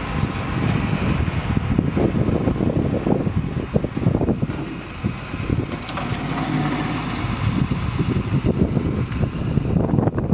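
A HIAB crane lorry's engine running steadily to power the hydraulic crane, as a low rumble buffeted by wind on the microphone.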